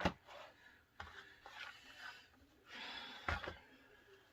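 Carded Hot Wheels cars in plastic blister packs being handled: faint rustling, with a sharp click at the start and another about three seconds in.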